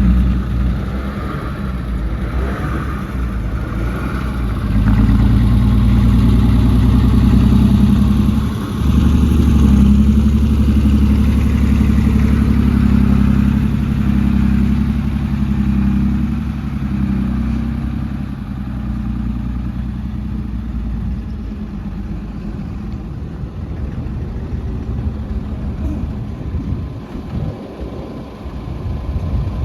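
Heavy diesel engine of earthmoving machinery running, pulling harder and louder from about five seconds in, with a brief dip near nine seconds, then easing back after about eighteen seconds.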